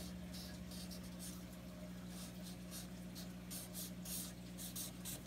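Sharpie marker scratching across paper in a series of short, quick strokes as zigzag lines are drawn.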